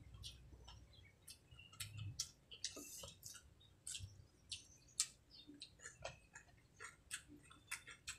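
Eating sounds close to the microphone: chewing with mouth smacks, as irregular sharp clicks a few times a second.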